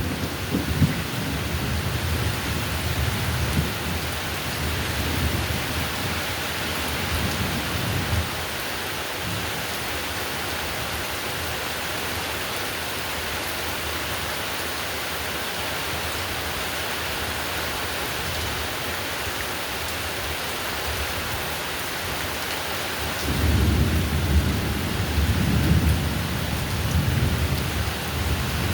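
Heavy rain falling steadily, with low rolls of thunder rumbling through the first several seconds, dying away, and building again near the end.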